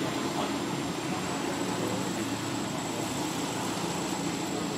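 Steady outdoor background noise: an even hiss with a thin, steady high-pitched whine above it and no distinct events.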